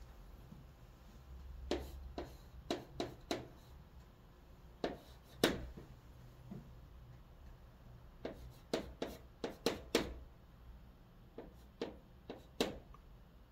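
Chalk writing on a chalkboard: sharp taps and short scrapes of the chalk stick, coming in irregular clusters with short pauses between words.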